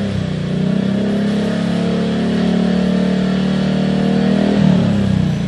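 Yamaha Mio 125S single-cylinder scooter engine through a Yoshimura R77 exhaust with its silencer insert removed, held at high revs with the pitch slowly rising. The revs drop back toward idle near the end.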